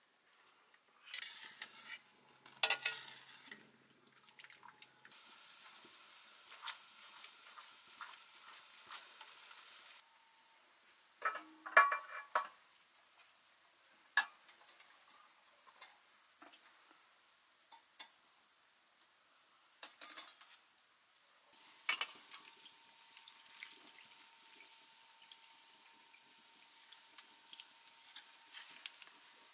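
Stainless steel colander, wok and bowls clinking and knocking now and then, with some water sounds as boiled noodles are drained and moved into water.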